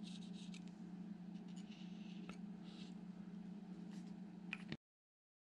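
Dark olive marker scratching faintly on fly-tying thread as the thread is coloured, with a couple of small clicks over a low steady hum. The sound cuts off abruptly near the end.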